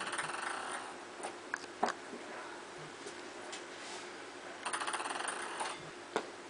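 Ping pong ball bouncing on hard surfaces: two spells of rapid clicking bounces, each about a second long, one at the start and one about five seconds in, with a few single taps between.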